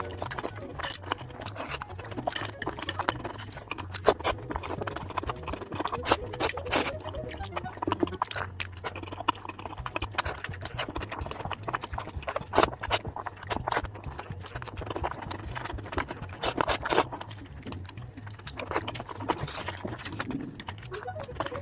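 Close-miked mukbang eating sounds: wet chewing and lip-smacking, heard as an irregular run of sharp clicks, over a low steady hum.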